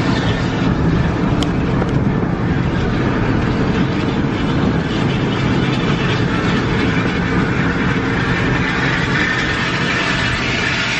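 Coach running at motorway speed: a steady engine drone mixed with tyre and road noise, heard from inside the cab.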